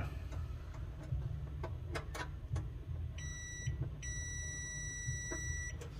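Digital multimeter's continuity buzzer beeping, a steady high tone, as its probes bridge a clothes-dryer fuse: a short beep about three seconds in, then a longer beep of nearly two seconds. A few light clicks come before it. The beep means the fuse conducts and is good, not blown.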